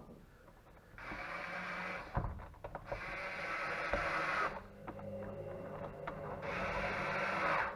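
Small electric motor whirring in about four short runs of a second or two each, with a few clicks between them: a screwdriver driving screws into a car fridge's plastic housing.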